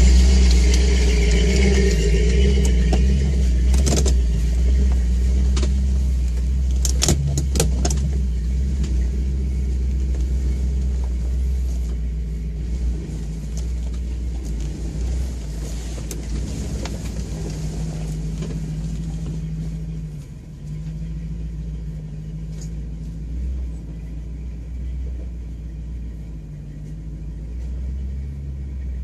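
Off-road 4x4's engine running steadily at low speed as it crawls up a rocky trail, heard from inside the cabin, with a few sharp knocks and rattles about four and seven seconds in.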